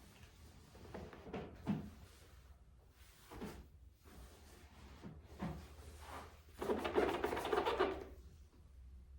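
Handling sounds of a patient being positioned on a chiropractic table: a few soft knocks and creaks, then a longer rustle about seven seconds in.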